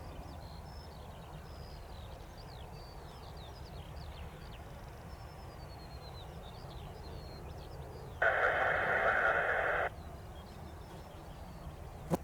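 Small birds chirping in short sweeping calls over a steady low rumble; about eight seconds in, the air traffic control radio keys up for under two seconds with a hiss of static and no voice.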